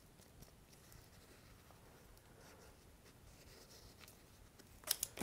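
Wooden stir stick scraping and smearing two-part epoxy around the inside of a heated hand grip: a faint, soft scratching. Two sharp clicks near the end.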